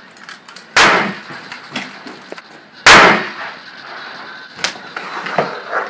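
Two loud gunshots about two seconds apart, the second the louder, each followed by a short ringing tail.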